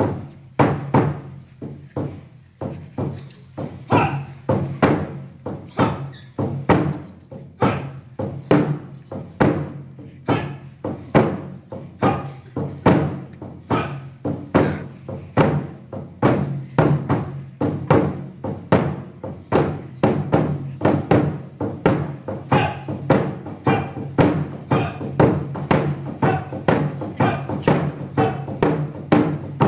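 Japanese taiko barrel drums struck with wooden bachi sticks in a steady, driving rhythm, about two to three strokes a second. Each stroke leaves a deep, ringing drum tone.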